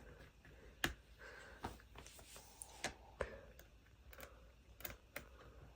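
Faint, irregular small clicks of a screwdriver turning a screw out of a baby rocker, the screw coming loose.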